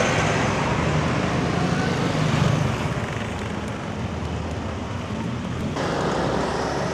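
Street traffic noise: motor vehicles running past on the road, loudest about two and a half seconds in.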